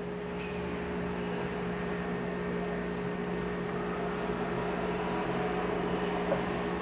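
Steady mechanical hum: a low constant drone with a fainter higher tone over an even hiss, with a faint tap a little after six seconds.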